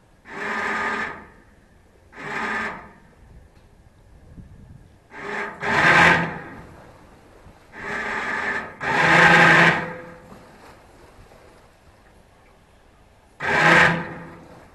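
A yacht's electric thruster motor buzzing in short bursts, six times, as the boat is manoeuvred into its berth.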